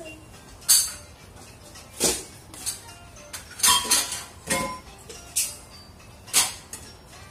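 Metal kitchenware clinking and clanking, with about nine sharp, irregular knocks of pans or utensils.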